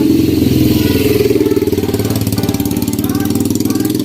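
Motorcycle engine running steadily, with a fast, even firing pulse.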